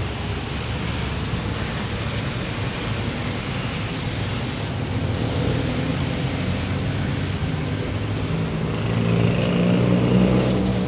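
A motor vehicle engine running over steady traffic noise. It grows louder toward the end, then cuts off suddenly.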